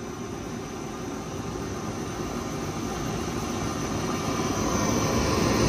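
Homemade jet engine, a butane-canister combustion chamber fed air by a blower, running with a steady rush of flame and air noise that grows gradually louder.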